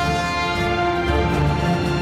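Intro theme music with long held notes.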